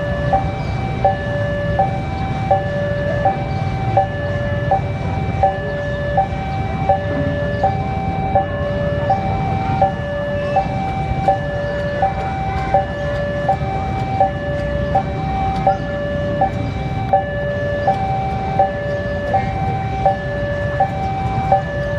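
Railway level-crossing alarm sounding steadily, two tones alternating high and low in an even repeating pattern, over the low rumble of an approaching KAI CC 201 diesel locomotive.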